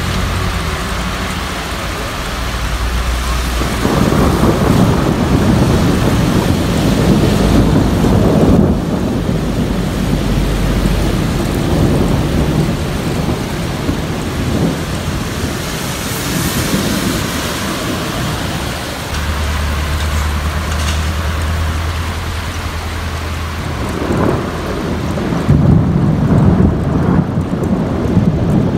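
Steady rain falling, with rolling thunder rumbling underneath; the rumble swells about four seconds in and again near the end.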